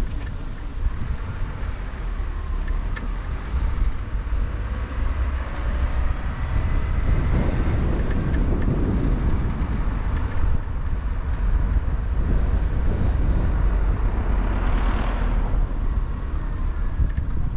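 A car driving, with steady low road and engine rumble. About fifteen seconds in, a rushing sound swells and fades.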